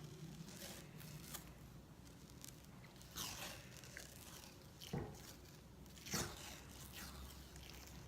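Hockey tape being pulled off the roll and wrapped around the knob of a hockey stick: a faint series of short, irregular peeling rasps, about six of them.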